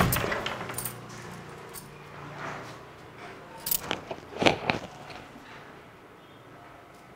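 A few sharp, light metallic clinks and a brief jingle, bunched between about three and a half and five seconds in, as a carved wooden door with a brass handle is swung open; faint room tone otherwise.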